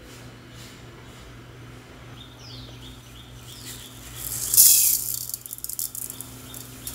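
Mustard seeds and urad dal tipped into hot oil in a steel kadai: a sharp sizzle starts suddenly about four seconds in, then breaks into crackling pops as the mustard seeds splutter.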